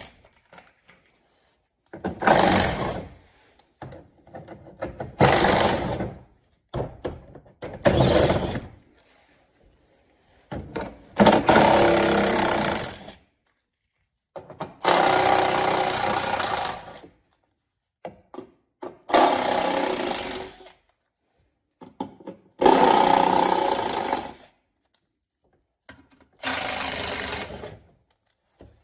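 A 1/4-inch impact driver hammering in about eight bursts of one to two and a half seconds each, separated by short pauses, as it backs out the screws and bolts holding a plastic underbody cover.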